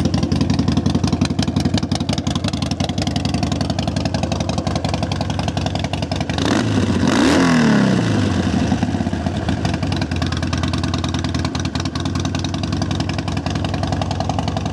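2009 Harley-Davidson Sportster 1200 Custom's air-cooled, fuel-injected 1200 cc V-twin idling through Vance & Hines slip-on exhausts. About halfway through there is one blip of the throttle that rises and settles back to idle.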